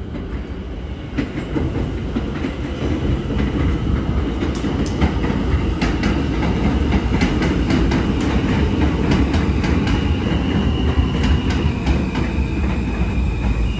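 New York City subway train rolling past on the elevated line, a heavy rumble with the clack of wheels over rail joints that grows louder as it passes. A thin high whine from the wheels or motors comes in about ten seconds in.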